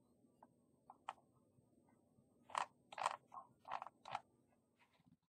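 Faint, short computer mouse clicks: one about a second in, then a quick cluster of six or seven between two and four seconds in.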